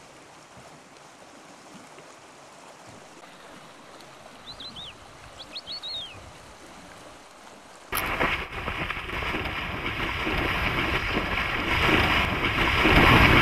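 Coastal brown bear running through shallow water, heavy splashing that starts suddenly about eight seconds in and grows louder toward the end. Before it, a faint steady water ambience with a few short high chirps near the middle.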